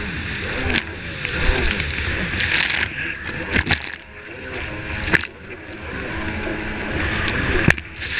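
Stand-up jet ski's engine running hard, its pitch rising and falling with the throttle, under a steady rush of spray and wind over a camera mounted on the craft. Several sharp slaps as the hull hits the chop.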